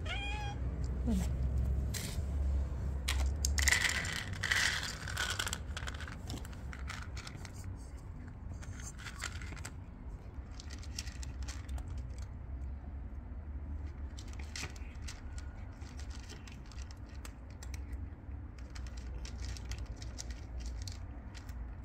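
A domestic cat meows once at the start. A few seconds in, dry kibble rattles into a plastic dish, and then the cat crunches the kibble with many small irregular clicks.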